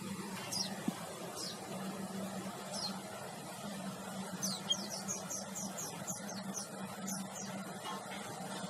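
High, thin chirps of a small munia (emprit haji), short falling notes: a few scattered at first, then a quick run of about a dozen from about halfway. A steady low hum runs underneath.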